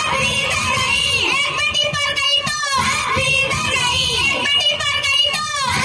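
Young girls singing a song together into microphones, amplified over a stage loudspeaker system.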